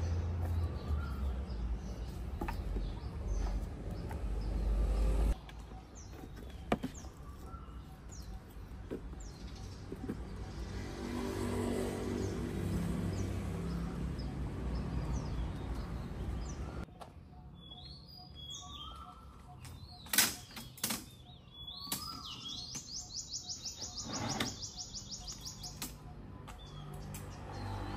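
Street ambience with birds chirping, opening with a low rumble that stops abruptly a few seconds in. Later come a few sharp knocks and clicks as a metal-framed folding camp chair is handled and set up.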